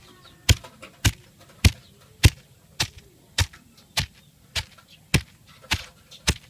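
Steady, evenly spaced knocks of food being struck on a hard surface during cooking preparation, about eleven strokes at a little under two a second.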